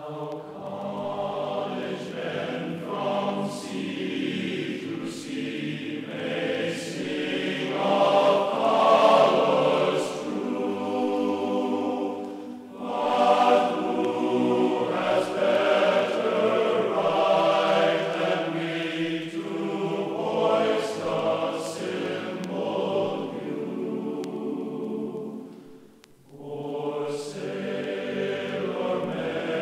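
Choral music: a choir singing sustained chords, with short breaks about twelve seconds in and near the end.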